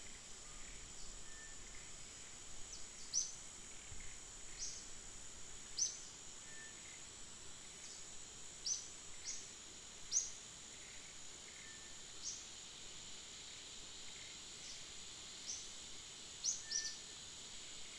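Steady high-pitched insect drone, with short, sharp downward chirps of birds every second or so scattered over it.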